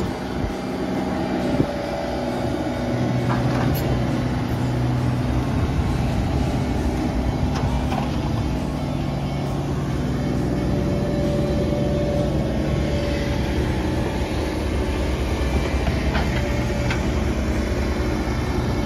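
Bucket truck's engine and hydraulic system running steadily while its boom is worked from the bucket's control valves: a low engine drone with a higher steady whine, and a few light clicks.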